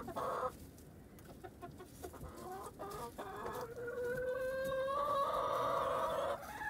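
Hens clucking with short calls, then one long drawn-out call of about three seconds that rises slightly in pitch.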